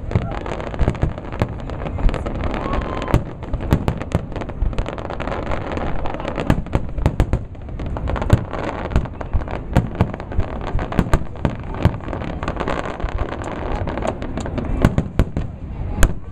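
Aerial fireworks shells bursting in a display: many sharp bangs in quick, irregular succession over a continuous low rumble.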